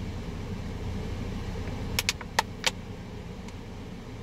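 Steady low hum of a car idling, heard inside the cabin, with four sharp clicks about two seconds in from a plastic water bottle being handled and put away.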